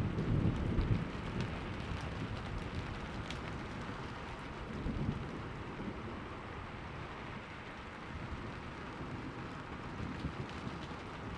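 Steady rain falling, with the tail of a thunderclap rumbling away over the first second. A fainter low rumble of thunder swells about five seconds in.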